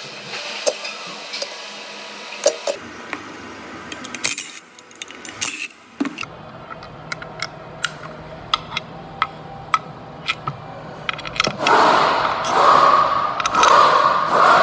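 Irregular metallic clicks and clinks, with a louder rough scraping or rubbing sound starting about twelve seconds in.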